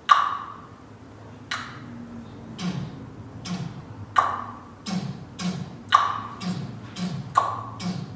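Hollowed-log slit drum (West African talking drum) struck in an uneven, speech-like rhythm, alternating a high, sharp knock and a lower, duller one: the drum's two tones standing in for the high and low tones of a spoken language.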